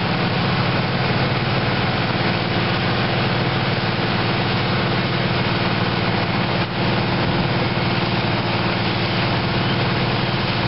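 Fire engine's engine running steadily, a constant low hum under a broad rush of noise, with one brief dip about two-thirds through.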